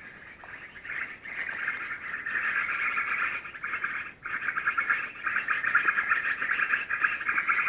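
A continuous, rapidly pulsing buzzing chorus of calling animals, dropping away briefly twice and louder in the second half.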